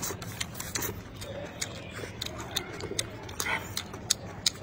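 People eating stir-fry with chopsticks close to the microphone: irregular sharp clicks and smacks of chewing and utensils.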